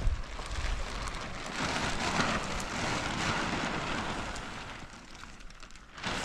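Strong wind gusting, a rushing noise with a low rumble of the wind buffeting the microphone. It eases off near the end.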